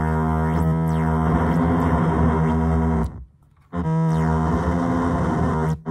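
Synthrotek 4093 Chaos NAND noise pedal droning through a Chase Bliss Audio Habit delay: a loud, buzzy electronic tone of several stacked pitches that shift in small steps. About halfway through it cuts out for under a second, then comes back.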